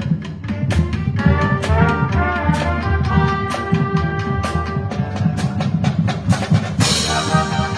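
A band of brass and percussion playing a tune: trumpets, trombones and sousaphones holding notes over a steady drum beat of about two strokes a second, with a crash near the end.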